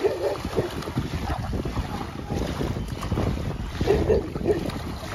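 Wind buffeting the microphone, over the splashing of a golden retriever wading and swimming through shallow lake water, in irregular bursts.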